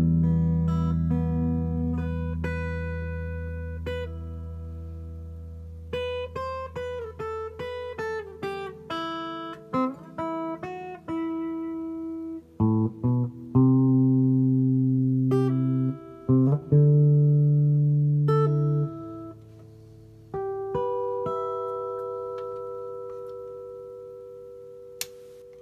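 Guitar played through a Fender Marine Layer Reverb pedal in its Special mode. A chord rings and fades slowly, then come picked single notes and a few struck chords, each trailing off in a long reverb tail.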